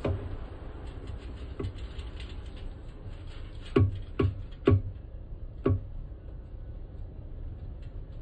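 Plastic oil pickup tube knocking against the oil reservoir tank's filler neck as it is lifted out: a handful of short dull knocks, three loud ones close together about four seconds in, over a steady low background.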